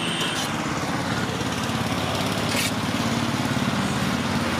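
Small engine running steadily, a low even hum, with one brief clink about two and a half seconds in.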